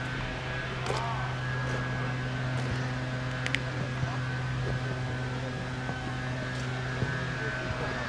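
Steady mechanical drone of a distant engine, holding one pitch throughout, with a couple of faint clicks.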